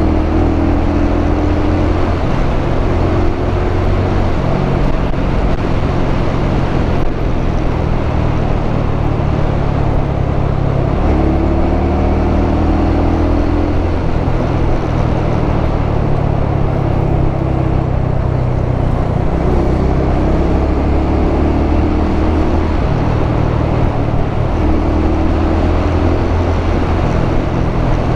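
Motorcycle engine running under way, its note shifting up and down every few seconds as the speed changes, over a steady rush of wind on the camera microphone.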